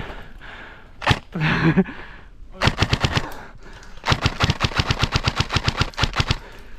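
Airsoft gun firing: one shot about a second in, then a short full-auto burst and a longer burst of rapid shots, about ten to twelve a second, lasting around two seconds.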